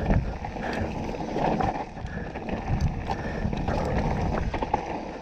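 Mountain bike (2018 Canyon Torque CF9 Pro) rolling along a dirt trail: a rumbling mix of tyre noise and wind buffeting the helmet-mounted microphone, with scattered clicks and rattles from the bike.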